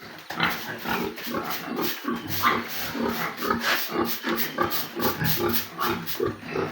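A group of pigs grunting, many short overlapping grunts in quick succession.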